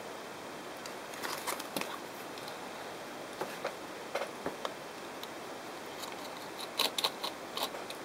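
Light plastic clicks and taps from handling a plush toy's small black plastic battery box, in three short clusters over a steady background hiss.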